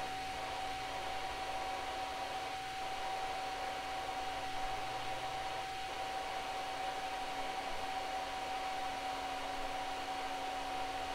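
Small cooling fans of a desktop laser engraver and its 2.5 W laser module running: a steady whir with a constant thin whine.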